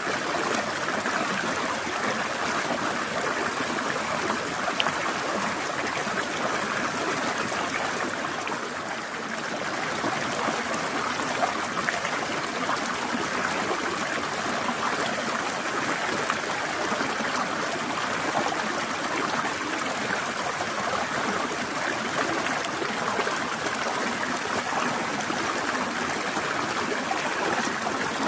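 Forest stream trickling and flowing steadily, an even rush of water with a slight dip in level about nine seconds in.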